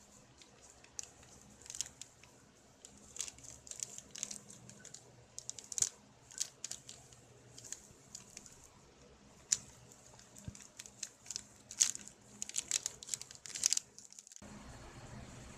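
Packaging being crinkled and torn open by hand: irregular crinkling and ripping, busiest near the end. About a second before the end it cuts abruptly to a steady low rumble.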